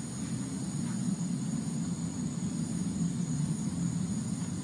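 A steady, unbroken low droning hum, one of the unexplained 'strange sounds' heard outdoors that listeners likened to an ongoing engine or high winds in the distance. A steady high insect trill sits above it.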